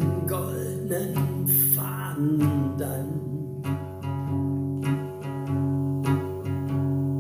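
Instrumental break of a karaoke song: steady held chords over a bass line that changes about once a second, with no singing.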